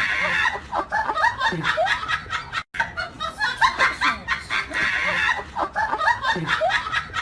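Someone laughing in quick, choppy bursts. The same stretch of laughter is played twice, with a brief cut-out between the two about 2.7 s in.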